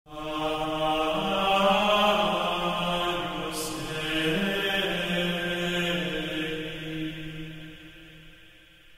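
Slow music of long held, chant-like vocal notes that change pitch a few times and fade away near the end.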